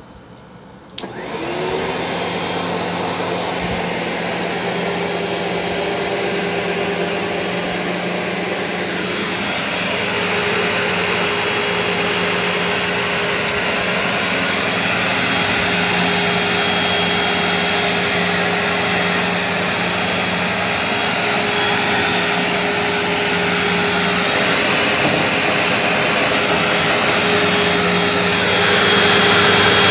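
Sebo Automatic X upright vacuum cleaner switched on about a second in, its motor spinning up and then running steadily as it vacuums dust and cat fur off carpet. The hum gets a little louder near the end.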